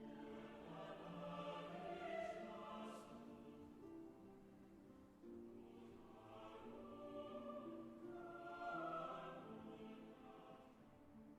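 Soft film-score music with a choir, long held chords swelling and fading.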